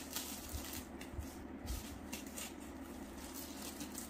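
Clear plastic packaging bag crinkling and rustling as hands grip it and work it off a boxed-up fabric bag.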